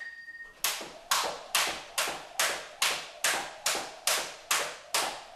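A short electronic timer beep, then a jump rope skipping at a steady pace from under a second in, the rope slapping the hardwood floor a little over twice a second.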